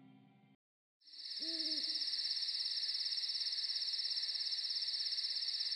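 The last of the soundtrack music dies away, and after a brief silence crickets start trilling steadily. An owl hoots once about a second and a half in.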